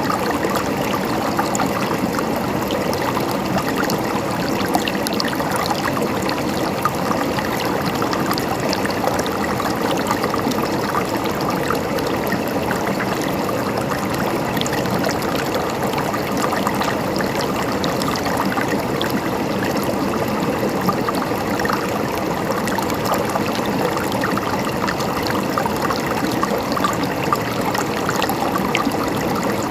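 River water flowing steadily over rocks, a constant rushing with fine splashing and gurgling.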